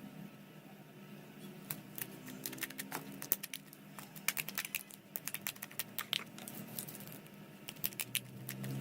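Homemade slime being squeezed and worked by hand, giving off quick, irregular popping clicks as trapped air bursts.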